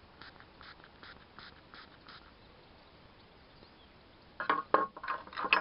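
A small spray bottle of lighter fluid gives a series of quick, faint spritzes, about three a second, as fluid is sprayed into a Zippo lighter. Near the end come several loud, sharp metallic clicks and clinks from the Zippo's steel case and lid.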